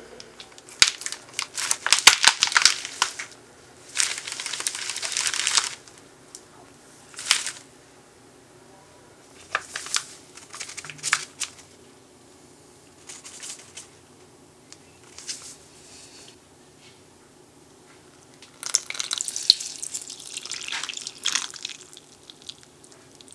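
Flour being poured and tipped into a glass bowl, with packets rustling and crinkling, in separate bursts of rustling and hiss with a few sharp clicks; the longest burst comes near the end.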